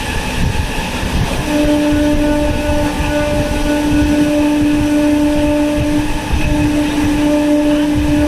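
Train running on the rails with its horn sounding one long steady note from about a second and a half in, breaking off briefly about six seconds in and then sounding again.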